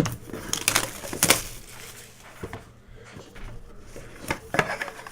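Trading cards and pack wrappers being handled: a run of light rubbing, rustling and clicks, with a few sharper taps.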